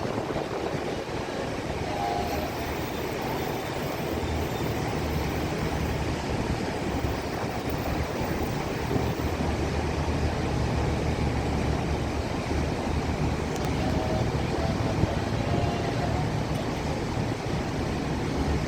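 A ship's engine running with a steady low rumble, under a wash of wind and water noise as the vessel comes alongside the pier to be moored.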